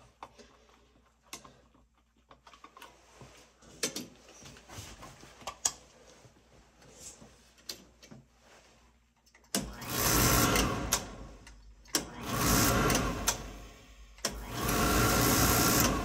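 A few light clicks and taps, then the oil burner is fired three times for about two seconds each, its motor buzzing together with the ignition spark. It is a spark test on the swung-out burner: the spark is there, though the technician wonders whether it is shorting out.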